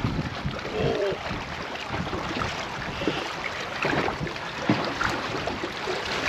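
Wind buffeting the microphone and choppy water slapping against the hull of an anchored small boat, with a few short, low knocks.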